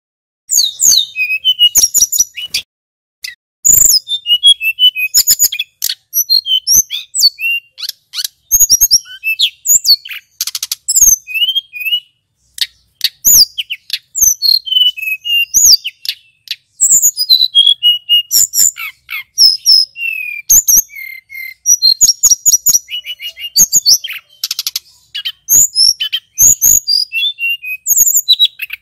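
Male hill blue flycatcher singing a long, rapid, varied song of high whistles, quick trills and chattering notes. The song starts just under a second in and pauses briefly around three seconds.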